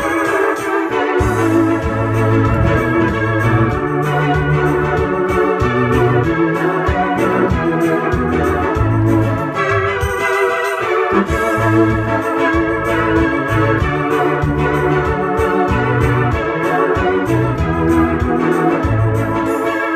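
Roland electronic keyboard played live with an organ sound: held chords over a bass line that changes every second or two. The bass drops out briefly about halfway through.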